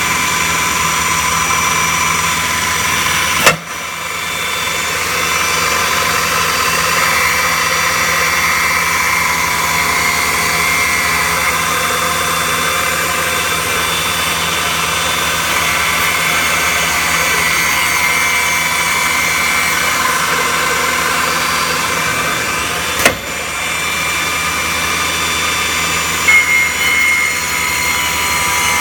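CNC woodworking router running, a steady machine noise with a high whine. A sharp knock comes about three seconds in and again about twenty seconds later, each followed by a brief drop in the noise.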